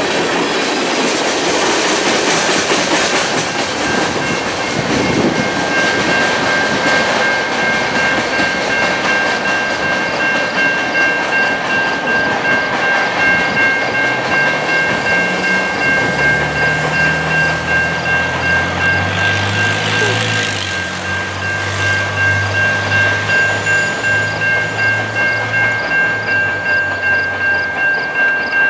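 Last cars of a freight train rattling past over the rails for the first few seconds, then a railroad grade crossing's warning bell ringing steadily at about two strikes a second after the train has cleared. A low drone joins in for about ten seconds in the middle.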